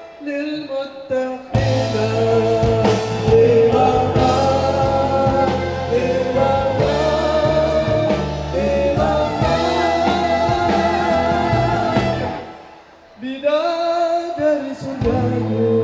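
Man and woman singing an Indonesian pop ballad as a duet into microphones over a live band. About three seconds before the end the band stops briefly, the voices carry on alone for a moment, and the band comes back in.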